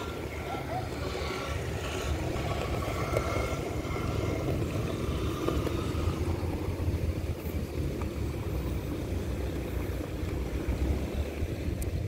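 Wind buffeting the microphone: an uneven low rumble that gets gustier near the end.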